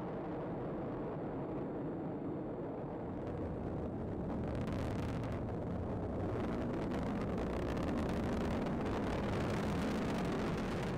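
Atlas V rocket climbing on its RD-180 main engine and two solid rocket boosters: a steady, low exhaust roar that grows louder and starts to crackle about four seconds in.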